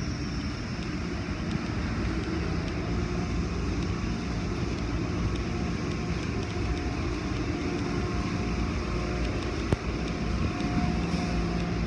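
Steady running noise of an automatic car wash tunnel's machinery, its spinning brushes and water spray, with one short knock near the end.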